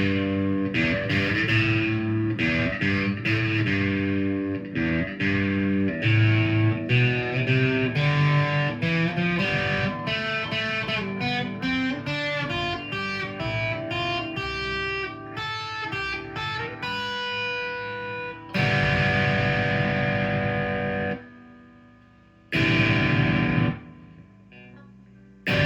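G&L Legacy Tribute electric guitar with single-coil pickups, on the middle-and-bridge pickup combination through a Line 6 amp with distortion. It plays a run of single notes and riffs, then a few sustained chords, each cut off short. The in-between pickup position keeps the hum low, "so quiet".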